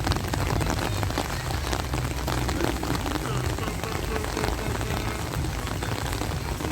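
Steady rain falling, with many separate drop hits ticking close by over a low, steady rumble.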